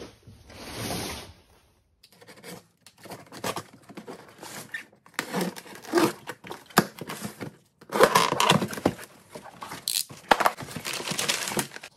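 Utility knife slicing along packing tape on a cardboard box, with tape tearing and cardboard scraping, then crumpled packing paper crinkling and rustling as the box is opened, busiest in the last few seconds.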